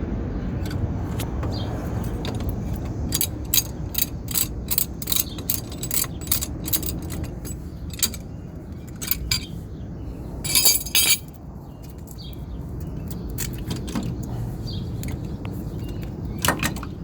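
Hand tools and metal brake parts clinking and clicking on a van's front brake assembly, with clusters of sharp clicks and a short rattling burst about ten seconds in, over a steady low outdoor rumble.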